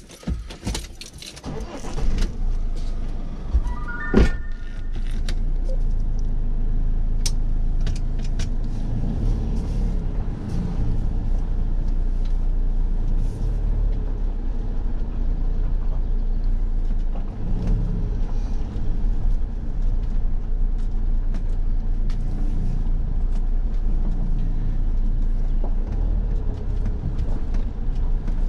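Motorhome engine starting about two seconds in and then running steadily as the vehicle pulls away slowly. Around four seconds in there is a short run of electronic beeps, like a dashboard chime.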